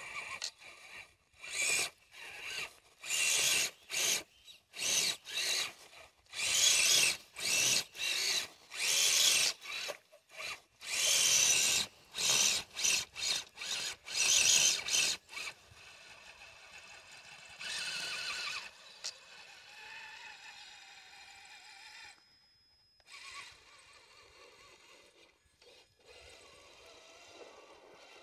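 Brushed electric motor and geartrain of a Traxxas TRX-4 RC crawler on snow tracks, whining in short bursts as the throttle is blipped on and off, about a dozen times in the first fifteen seconds. After that the motor runs only faintly, with one longer burst.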